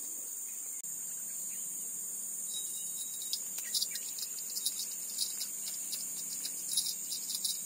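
Steady high-pitched drone of insects. From about two and a half seconds in, short irregular high chirps join it, several a second.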